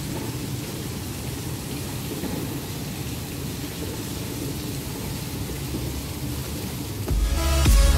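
Steady low rumbling noise, then electronic music with a heavy beat starts suddenly about seven seconds in and becomes the loudest sound.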